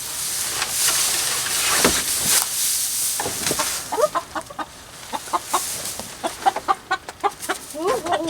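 Chickens clucking: short repeated calls from about three seconds in, with a longer drawn-out call near the end. The first few seconds are mostly a noisy rustle.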